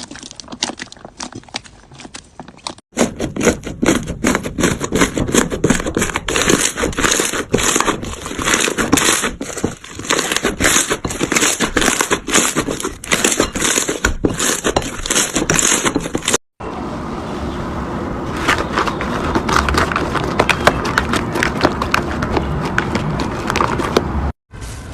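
Hands squeezing, poking and stretching slime: dense sticky popping and crackling clicks, in three clips with abrupt cuts about three seconds in and again near the middle.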